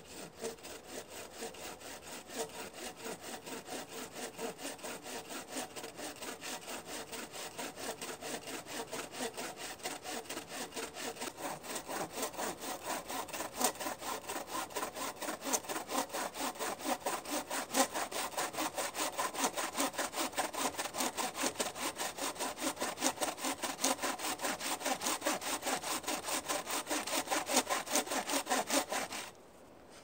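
Bow saw cutting through a log in steady back-and-forth strokes. The strokes grow louder from about halfway and stop abruptly about a second before the end.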